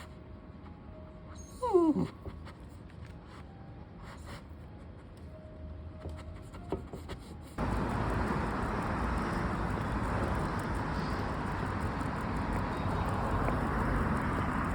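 Jindo-mix dog giving one short whine that falls in pitch, about two seconds in. Just past halfway a steady rushing noise starts suddenly and runs on.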